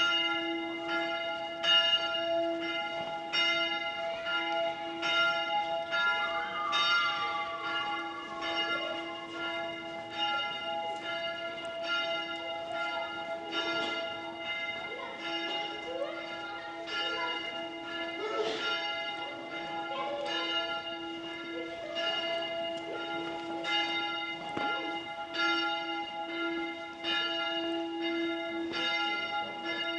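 Church bells ringing, a new strike about once a second, with each bell's tone hanging on between strikes.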